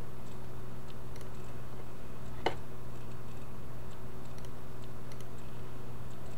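A few faint computer mouse clicks, one sharper about two and a half seconds in, over a steady low electrical hum.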